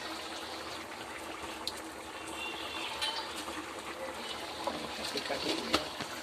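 Finished goat-trotter paya gravy bubbling steadily in a steel kadai on a gas stove, a thick simmer with fine crackle. A few sharper clicks come about five seconds in.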